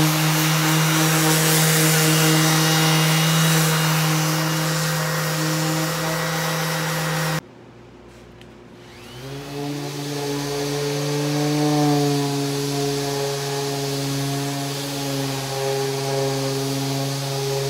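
Random orbital sander with 150-grit paper running on a wooden slab, with the hum of its dust extractor. About seven seconds in the sound cuts off abruptly; about two seconds later the motors spin up again with a rising whine and run on steadily.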